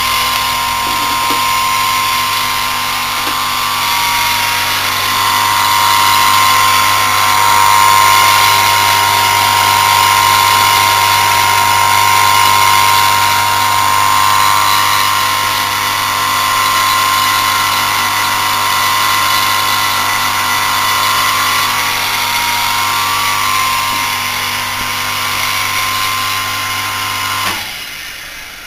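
Western Electric 1.1 kW, 2780 rpm single-phase capacitor-run motor running with no load, its pulley removed: a steady electric hum with a whine above it. It is switched off near the end and the sound falls away.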